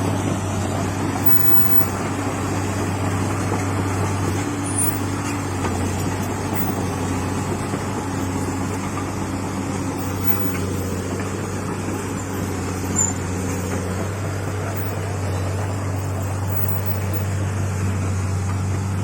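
Komatsu excavator's diesel engine running at a steady speed, a low even hum.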